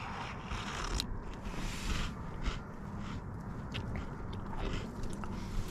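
A person chewing crunchy cookies close to the microphone, an uneven run of small crunches.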